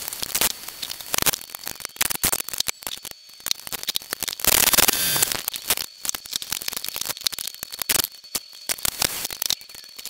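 Irregular clicks and clatter of hand tools and metal parts being handled, with a brief noisy rush about four and a half seconds in.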